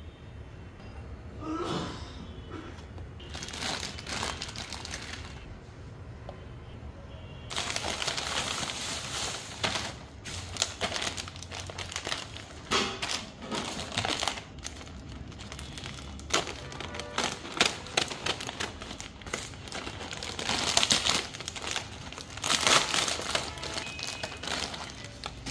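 Plastic food packaging crinkling and crackling as hands handle it: a bread bag and a plastic biscuit packet being opened. The crinkling is patchy at first and becomes dense and louder from about 8 seconds in.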